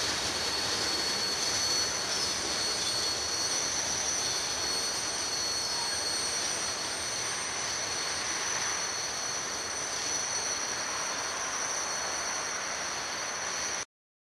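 Freight train's covered hopper cars rolling past on the rails: a steady rolling noise with a thin, high wheel squeal held throughout. The sound cuts off abruptly near the end.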